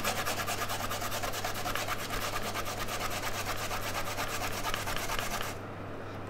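Fresh ginger root being grated on a stainless-steel box grater: a fast, even run of scraping strokes that stops about five and a half seconds in.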